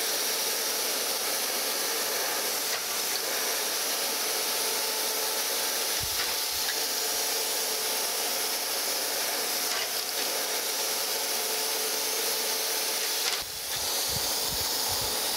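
Surface grinder making light finishing passes on a straight edge, fed down about a tenth and working toward sparking out. A steady hiss of the grinding wheel and spray-mist coolant runs over a faint steady hum of the machine, with a brief dip about 13 seconds in.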